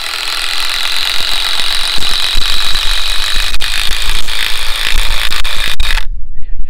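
RYOBI One+ 18V cordless power tool running steadily under load with a high whine for about six seconds, then cutting off abruptly.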